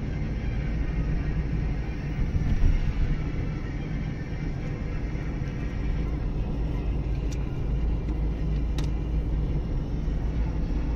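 Steady low rumble of a car driving through a road tunnel, heard from inside the cabin: tyre and engine noise on the road surface. Two short sharp clicks come about a second and a half apart near the end.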